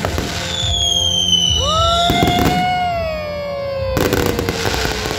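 Fireworks display going off: loud crackling bursts about two seconds in and again near the end, over long falling whistles.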